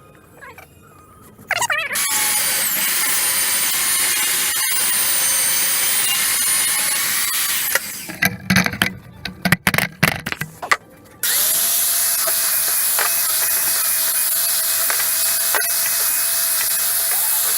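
Electric grinder spinning up with a rising whine and running steadily, then a choppy, uneven stretch, then running steadily again.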